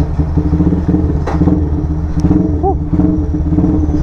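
Motorstar Z200 engine in a custom classic-style build, idling steadily with a crisp exhaust note.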